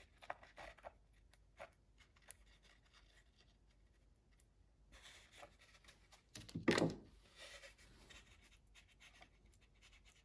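Small glue brush spreading epoxy along the wooden edge of a hollowed decoy body half: faint scratchy strokes and light ticks. A single louder knock about two-thirds of the way through.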